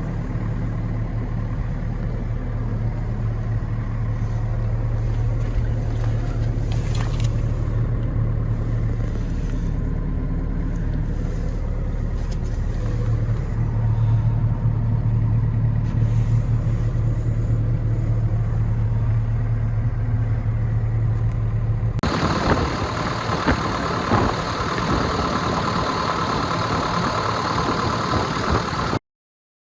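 JCB 8085 ZTS excavator's diesel engine running steadily with a low drone. About three quarters of the way through, the sound changes abruptly to a harsher, hissier running, then cuts off suddenly near the end.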